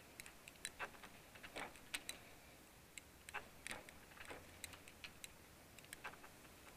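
Faint, irregular clicks and ticks, a few a second, as the awning fabric's edge strip is pulled with pliers into the groove of the aluminium roller tube.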